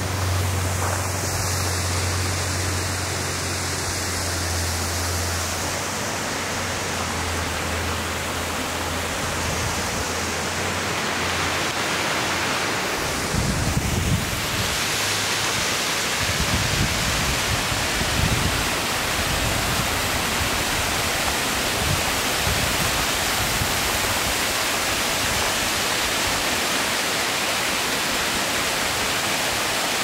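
Steady rushing noise of a waterfall, two thin streams pouring down a rock face, with irregular low rumbles of wind on the microphone in the later part. A low steady hum runs under the rush at first and stops about 13 seconds in.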